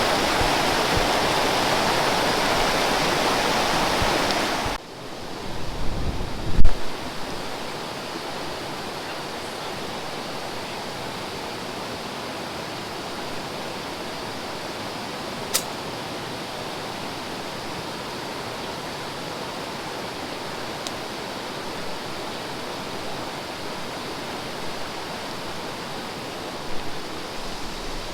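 Steady rush of flowing stream water, louder at first and dropping suddenly about five seconds in. A few low thumps follow shortly after, and there is a single sharp click about halfway through.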